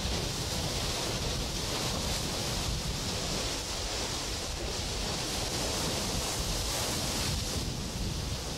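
Atlantic surf washing against rocks: a steady rushing noise with no breaks.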